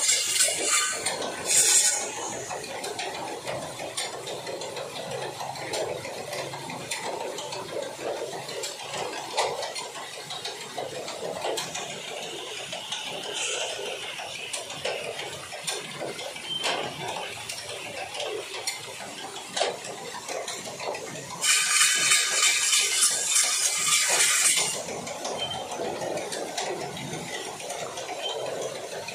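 Continuous rattling and clinking as a yoked pair of bulls drags a log around a circular track and the wooden cage wheel on the centre pole turns with them. A louder burst of noise lasts about three seconds, a little past two-thirds of the way through.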